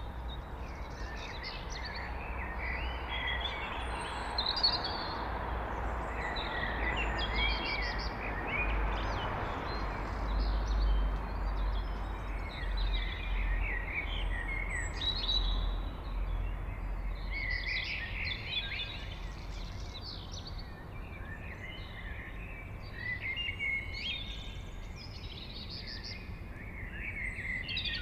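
Blackbird singing a run of warbling, chirping phrases, one after another with short gaps, over a steady low background rumble.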